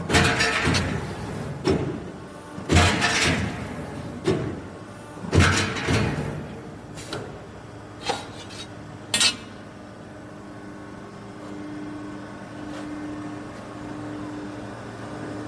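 CNC hydraulic punching machine punching holes in 6 mm steel plate: a run of loud metallic bangs with a ringing tail, about one every second or so, for the first nine seconds. After that only the machine's running hum remains, with a low tone that pulses about once a second.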